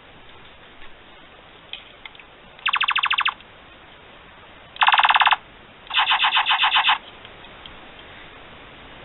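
Toy ray-gun Christmas ornament's sound chip firing electronic blaster sounds: three short bursts of fast-pulsing tones, the last about a second long.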